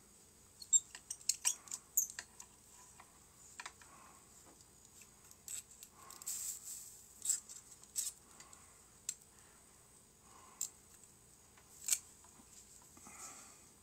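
Pliers working on a hot knife's blade fitting as the loose blade is tightened back in: small sharp metal clicks and scrapes, several in quick succession in the first two seconds, then single clicks every second or two.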